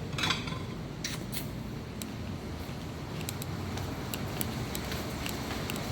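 Steady rain falling, an even hiss with scattered sharp drips and patters.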